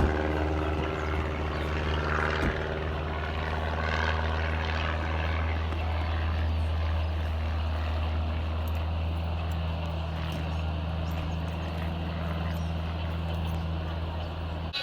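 Car engine and road noise heard from inside the cabin: a steady low drone over a constant hiss.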